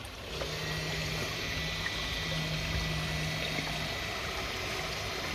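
Water rushing steadily through a self-cleaning pond filter as its filter fleece carries algae out into the collection tray. A low steady hum, the filter's drive advancing the fleece, starts just after the beginning and stops a little before four seconds in.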